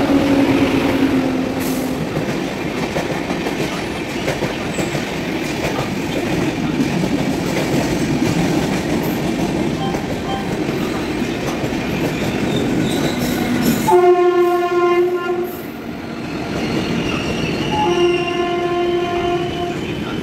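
Express train hauled by a WAP7 electric locomotive running through the station at speed: a steady rush of wheels and coaches on the rails. About fourteen seconds in the rush drops away and a locomotive horn sounds twice, each blast about a second and a half long.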